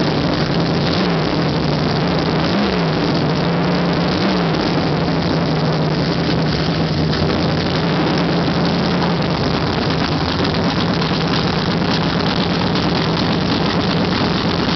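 Chevrolet Nova drag car's engine idling loudly and steadily in the smoke after a burnout, with three short throttle blips in the first few seconds.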